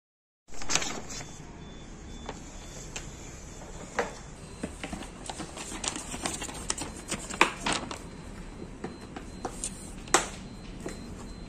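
Hard plastic clicks and knocks as the plastic side panel of an Olymplast ODC 03 M drawer cabinet is pushed into the holes of its wood-grain top board, over a steady low background hum. The loudest knocks come about halfway through and near the end.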